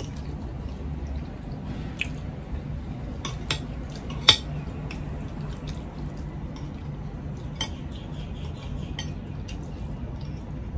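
Metal spoons and forks clinking and scraping on ceramic plates during eating, as scattered short clicks; the loudest is a single sharp clink a little after four seconds in.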